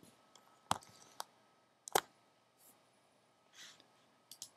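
A few sharp computer mouse clicks, spread out, with two close together near the end, and a soft breath between them.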